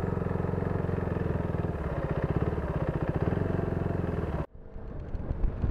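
Motorcycle engine running at a steady speed, its firing pulses even and unchanging, then cut off suddenly about four and a half seconds in.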